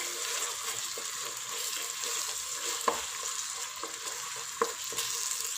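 Onion and tomato masala sizzling in oil in a pot while it is stirred, with a few sharp clicks of the spoon against the pot.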